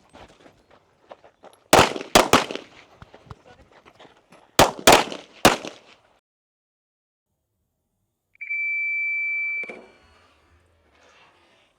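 Gunshots in two quick strings of three, about two seconds in and again around five seconds, each crack followed by a short echo. A few seconds later an electronic shot timer gives one long steady beep lasting just over a second.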